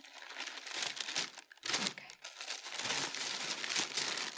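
Paper crinkling and rustling as a shoe box is unpacked by hand, with a short pause about one and a half seconds in.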